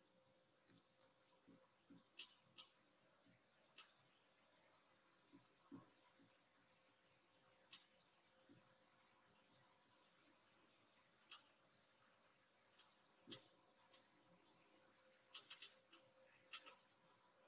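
Crickets trilling steadily at a high pitch, a little louder for the first seven seconds or so. Faint scattered taps and scratches of a marker writing on a whiteboard.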